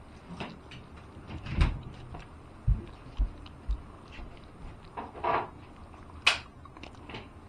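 A dog pushing a plastic treat-dispensing ball around the crate floor to get its kibble out: irregular knocks and thumps, with a few sharp clicks.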